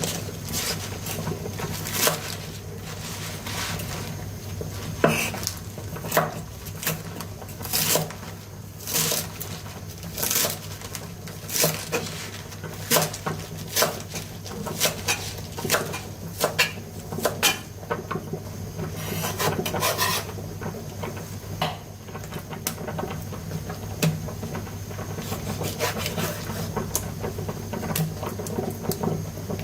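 Kitchen utensils and cookware clattering and scraping in irregular knocks and clicks, over a steady low hum.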